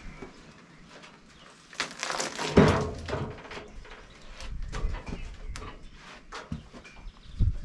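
Cut timber being handled at the sawmill: a rough scrape with a heavy thump about two to three seconds in, scattered knocks, and another pair of thumps near the end.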